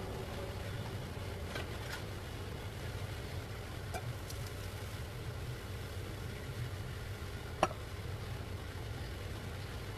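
Light clinks of a pot against a stainless steel colander as fried shallots are tipped into it, with one sharp metallic clink about three-quarters of the way through, over a steady low hum.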